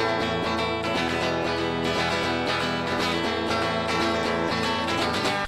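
Instrumental break in a song: strummed acoustic guitar with backing band, no singing.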